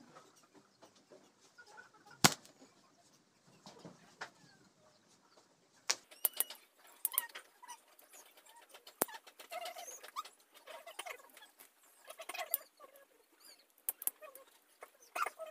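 Birds calling in the background, with scattered sharp clicks; the loudest click comes a little over two seconds in, and the chirping gets busier from about six seconds on.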